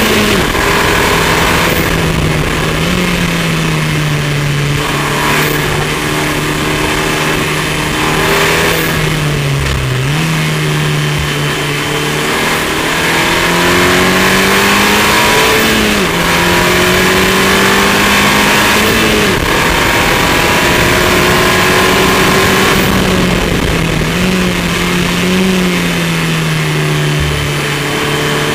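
KTM X-Bow R's turbocharged Audi 2.0-litre four-cylinder engine heard from the open cockpit at speed, its note climbing and dropping several times with throttle and gear changes, over steady wind and road noise.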